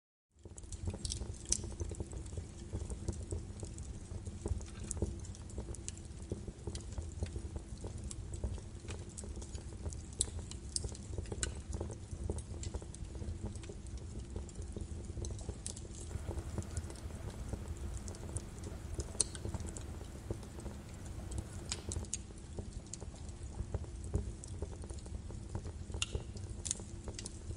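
Hands mixing chopped herbs and spices in an earthenware dish, giving irregular small clicks and taps over a steady low rumble and faint hum.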